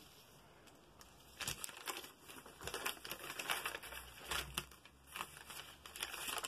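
Paper sewing-pattern pieces rustling and crinkling as they are lifted and pulled off cut fabric pieces, in short irregular bouts starting about a second and a half in.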